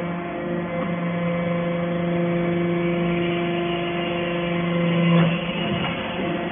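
Hydraulic scrap-metal baler running: its motor and hydraulic pump give a steady hum over mechanical noise, and the main hum drops away about five seconds in.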